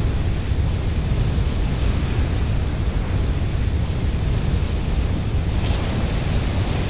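Surging seawater as a tsunami sound effect: a steady, deep rushing noise, with a brighter hiss coming back near the end before it cuts off.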